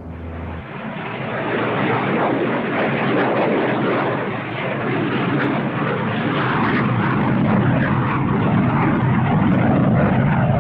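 Antonov An-22's turboprop engines running, a dense steady engine and propeller noise that swells over the first two seconds and then holds.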